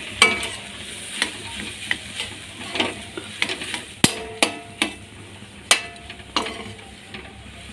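A steel slotted spoon stirring mashed boiled potatoes and masala in an aluminium kadai, knocking and scraping against the pan about a dozen times at an uneven pace, some strikes ringing briefly. Under it runs a low frying sizzle.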